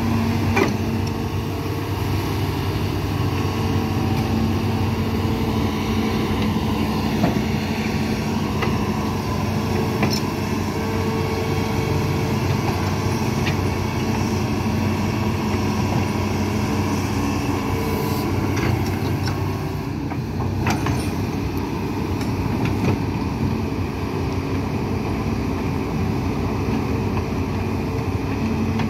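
Hitachi amphibious excavator's diesel engine running steadily under load as the pontoon-tracked machine crawls through the channel, with a few sharp knocks now and then.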